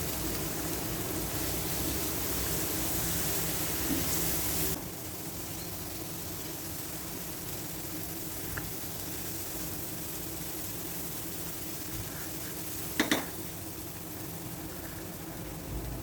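Onion, spice masala and tomato ketchup sizzling in oil in a frying pan while being stirred, a steady hiss that drops suddenly to a quieter level about five seconds in. A spoon clinks sharply against the pan twice, about thirteen seconds in.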